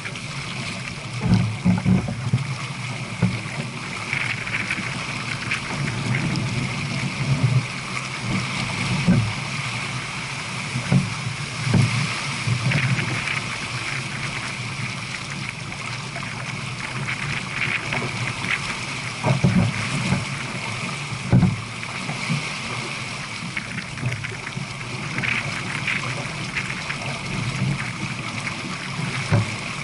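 Water rushing and gurgling steadily along a J/24 sailboat's hull as it sails downwind at about 7 knots. Several louder low thumps come irregularly through it, a few in the first seconds and more around the middle.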